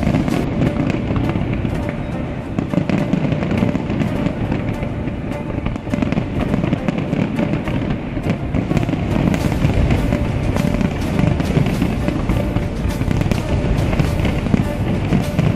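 A large fireworks display going off in a dense, continuous barrage of rapid bangs and crackling, with a low rumble under it. Music plays along with it.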